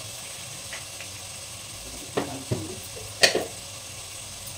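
A spoon and a glass salt jar being handled and set down: a few light clinks, then several knocks, the loudest about three seconds in. Under them, a faint steady sizzle of tomatoes cooking in the pan.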